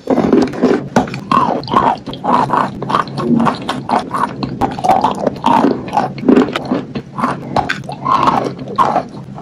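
Biting and chewing wet chalk: a dense, fast run of crunches and cracks with wet mouth sounds, loud and close.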